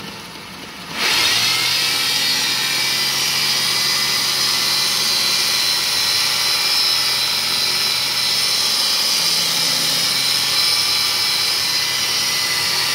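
Servo-motor-driven 2x42 belt grinder starting up about a second in, rising quickly to speed, then running steadily with a high whine over the hiss of the moving sanding belt.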